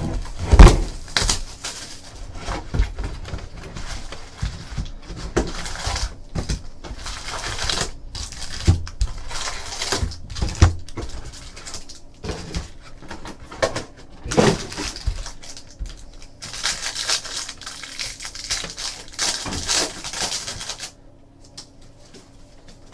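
A hobby box of trading cards being opened and its packs unwrapped: foil wrappers crinkling and tearing, with knocks and clicks of the box and cards on a table. A loud thump about half a second in.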